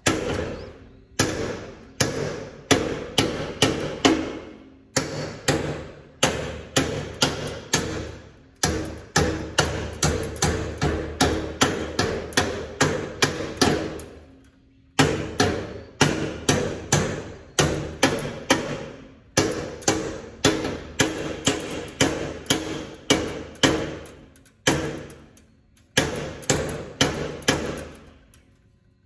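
Repeated hammer blows on a metal part, struck in quick runs of about two or three a second with short pauses between runs, the metal ringing under the blows.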